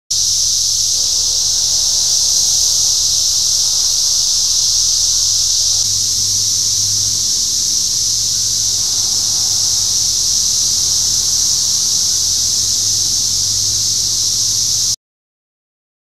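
Dense chorus of 17-year periodical cicadas in the trees, a loud, steady, high-pitched drone that cuts off suddenly near the end.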